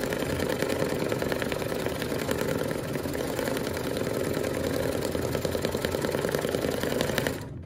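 Brother Luminaire embroidery machine stitching at speed onto stabilizer, a steady rapid needle rhythm that stops abruptly near the end as that section of the design finishes.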